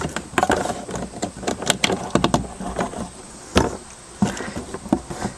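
Irregular clicks, taps and scrapes of split plastic tubing being worked over vinyl tubing and laid inside a hard plastic planter box, with one louder knock about three and a half seconds in.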